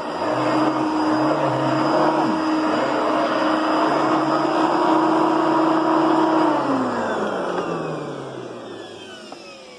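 Kenmore Heavy Duty Plus upright vacuum's 6.4-amp motor running steadily, then switched off about six and a half seconds in and winding down, its pitch and loudness falling as it coasts toward a stop.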